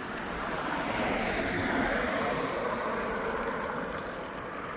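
A road vehicle passing by, its tyre and engine noise swelling to a peak about two seconds in and then slowly fading.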